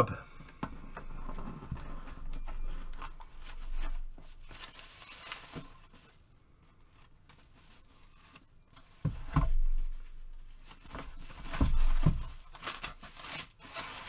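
Cardboard box packaging being handled and a foam wrap sleeve rustling and crinkling as an electronic device is lifted out and unwrapped. There is a quiet pause in the middle, then a couple of soft thumps and more crinkling near the end.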